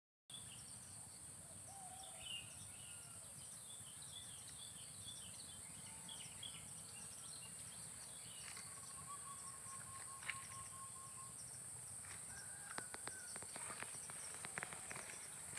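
Outdoor rural ambience: insects droning steadily at a high pitch while birds chirp, with a rapid, even bird trill about halfway through. A few sharp clicks come near the end.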